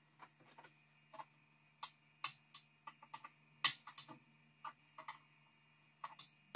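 Irregular light clicks and taps as hands handle the air compressor's pressure regulator and its fittings, the sharpest about two thirds of the way in.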